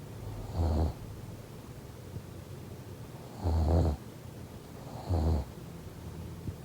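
Snoring in sleep: three short snores, about a second in, at about three and a half seconds and at about five seconds, over a low steady hum.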